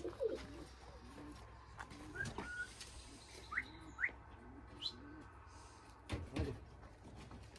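Domestic pigeons cooing softly in a loft: a run of low coos, with a few short rising chirps over them. A couple of soft knocks come about six seconds in.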